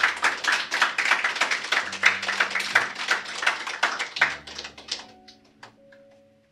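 An audience applauding, the claps thinning out and dying away about five seconds in, with soft background music underneath.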